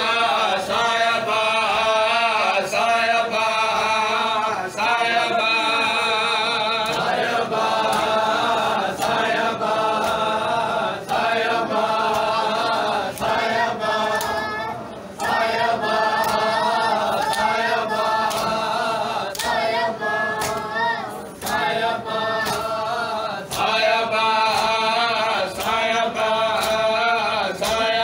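Men's voices chanting a noha, a Shia mourning lament, together, over a steady beat of open-handed chest slaps (matam) a little faster than one a second.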